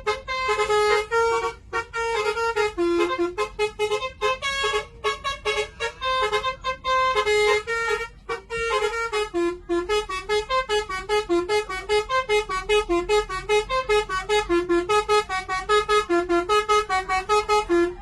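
Basuri telolet horn on a bus, its set of air-horn trumpets playing a tune of short pitched notes in a continuous run. The notes come faster and more evenly in the second half.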